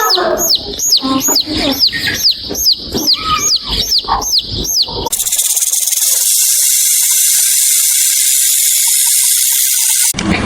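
Animal calls: a run of quick, high, falling chirps, about three a second, with lower calls beneath. About halfway through they give way to a steady high-pitched buzz that cuts off suddenly near the end.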